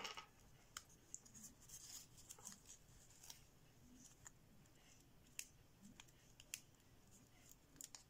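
Near silence, broken by faint, scattered crinkles and clicks of thin kami origami paper as fingers crease and shape a folded model.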